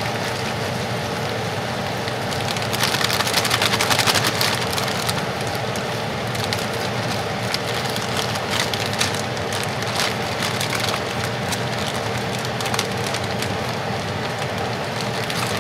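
Fresh baby spinach leaves going into a skillet of hot melted butter, sizzling and crackling as they hit the fat. The crackle is loudest about three to four seconds in.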